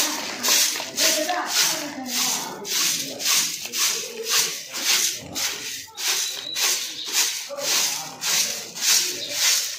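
Broom sweeping cement powder across a truck's cargo-bed floor in quick, even strokes, about two a second. The dust is being swept to soak up and carry off the water on the wet floor.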